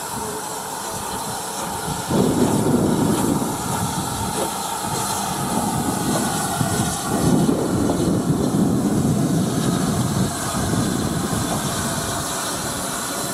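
SR West Country class 4-6-2 steam locomotive 34027 'Taw Valley' moving slowly light engine, steam hissing from around its cylinders, the noise getting louder about two seconds in.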